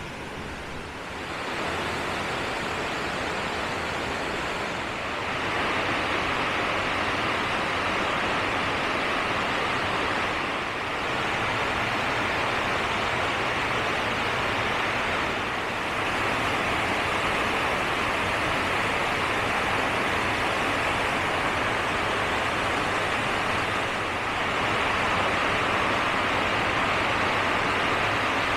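Rushing water: a steady, even rush that gets a little louder a few times along the way.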